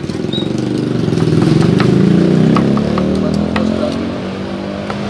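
A vehicle engine running close by, loudest about two seconds in, with a slight drift in pitch. Sharp knife taps on a wooden cutting board as beef is chopped.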